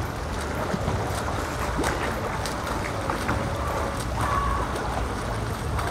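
Pool water splashing and churning as swimmers holding kickboards practise the breaststroke kick, a steady wash of water noise.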